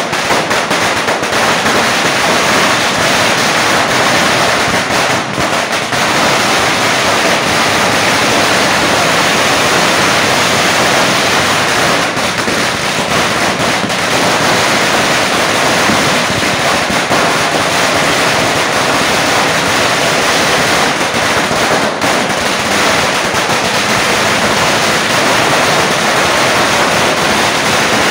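Indigo 10000-wala firecracker garland going off: thousands of small crackers bursting in a dense, unbroken rapid-fire string, so fast that the bangs merge into one steady, loud crackle.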